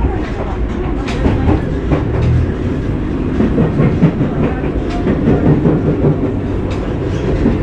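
Hybrid diesel railcar running along the line, heard from inside the passenger cabin: a steady rumble of wheels and running gear with irregular clickety-clack clicks as the wheels pass over rail joints.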